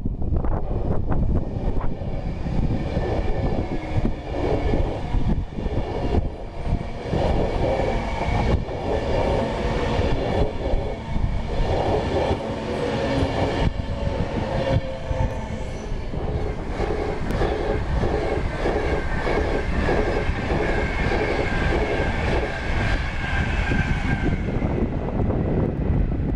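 A train passing close by, its wheels clicking rhythmically over rail joints, with a high steady squeal from the wheels in the later part.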